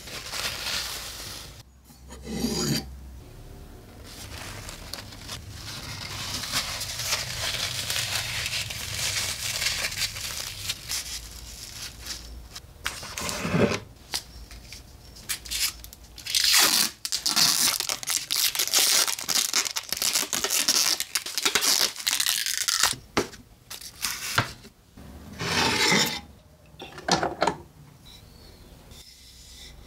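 Hand work at a workbench: a long stretch of rubbing and scraping noise, then a run of short knocks and clatters as tools are handled and set down.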